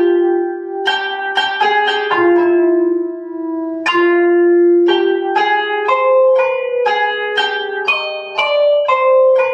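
Mus2 notation software playing back a Hüzzam makam melody as single plucked-sounding notes, some held for about a second. The playback is tuned to the microtonal Yarman-24c pitch system and transposed down a fifth (−702 cents), so that rast sounds as C.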